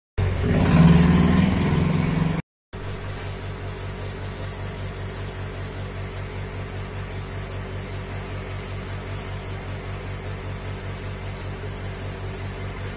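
Steady low mechanical hum with a regular throb, like an engine idling. It follows a louder, busier burst of the same kind of sound in the first two seconds, which cuts off suddenly.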